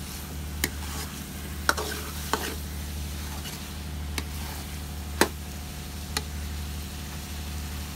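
Boiled lobia beans sizzling as they fry in spice masala in a pot, stirred with a spoon that clacks against the pot about six times at uneven intervals, loudest a little past five seconds in. This is the bhunna stage, the beans being fried well in the masala before water goes in.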